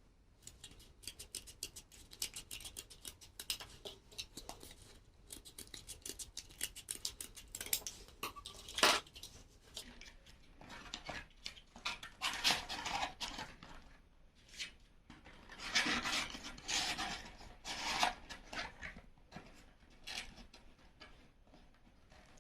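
Scissors cutting cardboard: a quick run of snips, then longer scraping cutting strokes in two stretches near the middle and later on.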